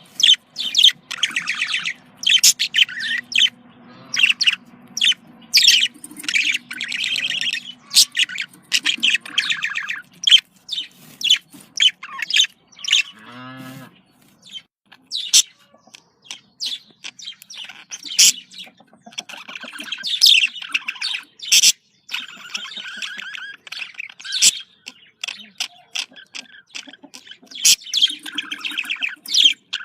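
Budgerigars calling: many short, sharp chirps interspersed with stretches of chattering warble.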